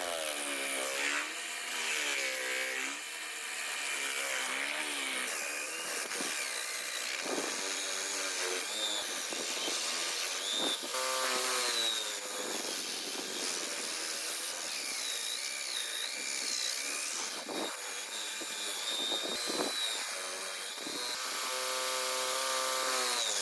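Electric drill powering a homemade wood lathe, its motor pitch rising and falling repeatedly, with scraping noise from the turning.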